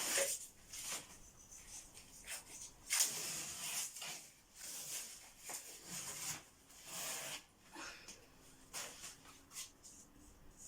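Old paper wallpaper being torn and peeled off a wall in a series of rasping rips, the loudest about three seconds in.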